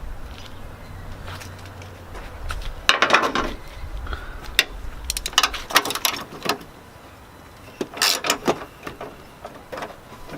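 Irregular clicks, knocks and rattles of hand tools and metal parts being handled, with a cluster of clatter about three seconds in and again in the middle and near the end.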